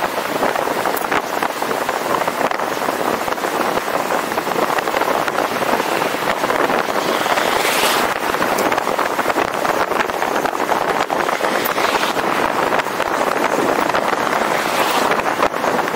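Steady rushing road and wind noise of a moving vehicle, with many small crackles and three brief hissing swells.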